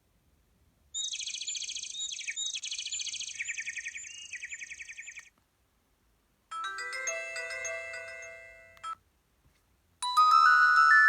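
Preloaded ringtones of a Huawei G7002 mobile phone playing one after another: a high, fast chirping trill for about four seconds, then a short chiming melody, then a louder melodic ringtone starting near the end.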